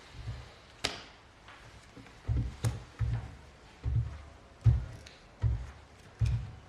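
A series of heavy, dull thuds, each with a sharp click on top. They come unevenly at first, then settle into a slow, steady pace of about one every three-quarters of a second.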